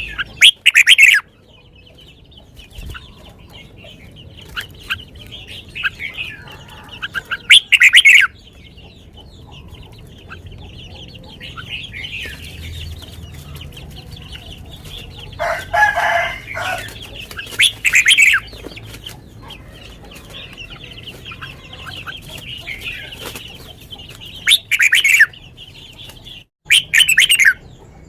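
Caged red-whiskered bulbul singing short, loud whistled phrases, about five times, over a steady twittering of other birds. A lower, longer call comes about halfway through.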